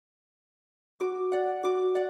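Silence for about a second, then background music starts abruptly: a bright plucked-note pattern, about three notes a second.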